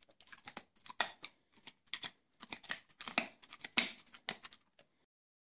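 Golden retriever chewing a crunchy treat: an irregular run of quick crunches and mouth clicks that stops abruptly about five seconds in.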